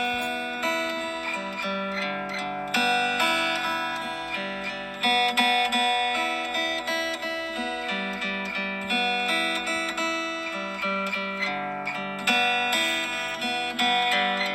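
Background music of plucked acoustic guitar, a busy run of picked notes.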